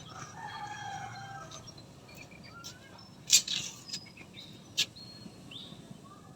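A rooster crowing once near the start, a falling call of about a second, then scattered small bird chirps. A few sharp clicks cut in, the loudest about three seconds in.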